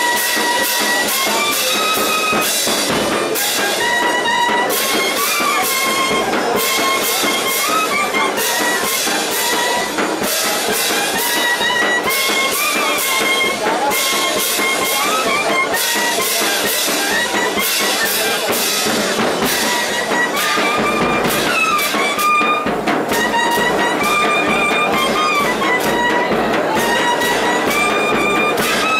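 Indian band baja, a street brass band, playing a melody on brass and woodwind instruments over a steady drum beat.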